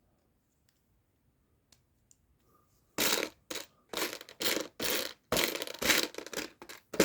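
Loose plastic Lego Technic pieces being rummaged through in a parts tray: a couple of faint clicks, then from about three seconds in a quick run of rattling and scraping.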